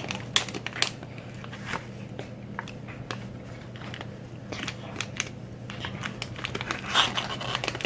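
Scattered small clicks and light crinkles of food being handled, over a steady low hum.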